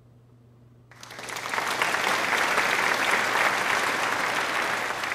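A burst of applause, an added sound effect, rising in about a second in and carrying on steadily to the end.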